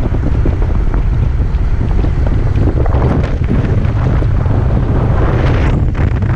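Wind buffeting the microphone of a camera moving along with the riders: a loud, steady low rumble with a hiss over it.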